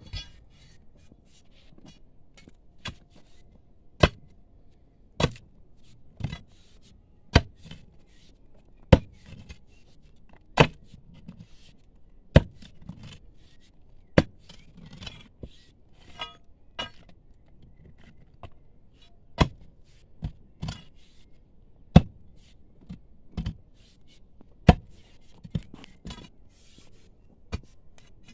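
Hammer blows on a steel chisel breaking brittle rock: sharp, clanging strikes every one to two seconds at an uneven pace, with faint clinks of stone between them.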